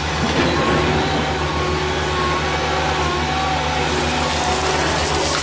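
Cat hydraulic excavator's diesel engine running steadily, with a few thin steady tones above the engine note.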